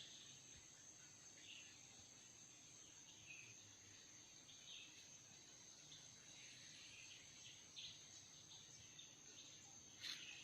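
Faint outdoor ambience: a steady high-pitched insect drone with scattered short chirps, and a brief click about ten seconds in.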